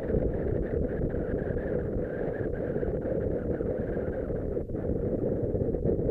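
Motorcycle riding at a steady speed, heard as a steady rush of wind on the camera's microphone with the bike running underneath.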